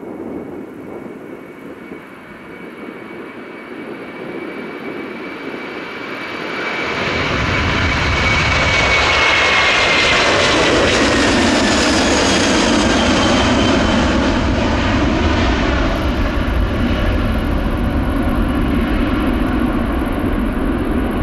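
Twin-engine widebody jet airliner, a Turkish Airlines Airbus A330, taking off at full thrust. The engine noise grows steadily louder as it rolls, lifts off and climbs past. A deep rumble comes in about a third of the way through, and a high whine falls in pitch as the jet goes by.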